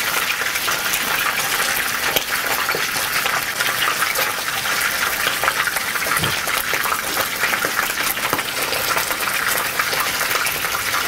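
Hot oil sizzling around whole fish shallow-frying in a pan: a steady hiss with dense fine crackling.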